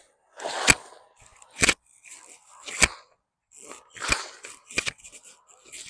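Digging by hand through loose soil in a fabric grow bag during a sweet potato harvest: a run of sharp scraping, digging strokes, roughly one a second, with rustling of soil between them.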